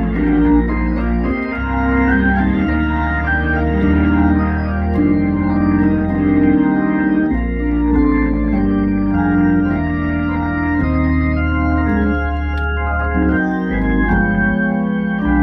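Two-manual organ playing a gospel song: full sustained chords that change every second or two over a deep bass line.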